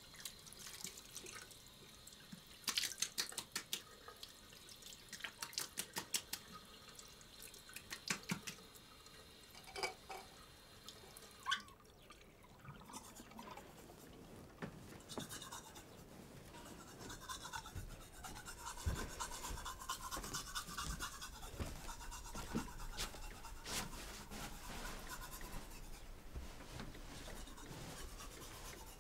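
Teeth being brushed with a toothbrush: quiet scratchy scrubbing strokes that come in short bursts at first and grow denser in the second half.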